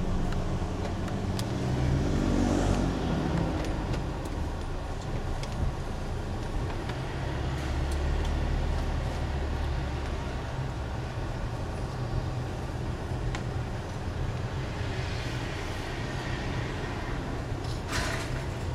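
Car cabin noise while driving slowly: a steady low engine and road rumble heard from inside the car.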